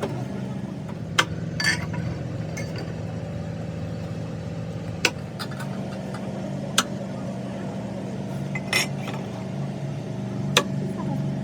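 Sharp metal clinks of hand tools and engine parts being handled, about six spread out at irregular intervals, over a steady low hum.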